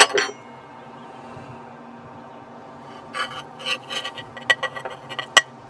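Metal spatula scraping and clinking against a baking dish and a cast-iron plate as a portion of casserole is lifted out and served: one sharp scrape and clink at the start, then a run of short scrapes and light taps from about three seconds in.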